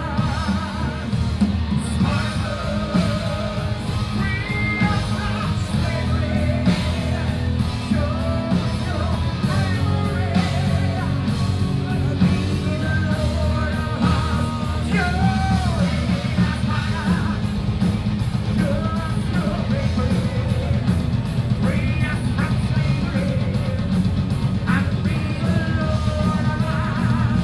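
A power metal band playing live: distorted electric guitars, bass and drums under a sung, partly shouted lead vocal with vibrato. Heard from among the crowd, with a heavy, dense low end.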